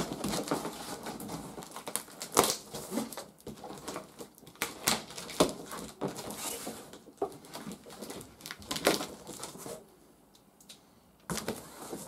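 Scissors cutting packing tape and a cardboard box being pulled open: irregular crackling, tearing and rustling of tape and cardboard, with a brief lull shortly before the end.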